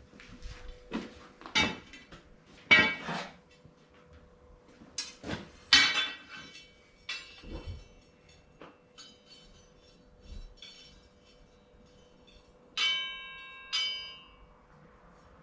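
Steel stock and tools clanking and clinking as they are handled, with several sharp knocks in the first half. Near the end come two metal strikes that ring on briefly with a bell-like tone. A faint steady hum runs underneath.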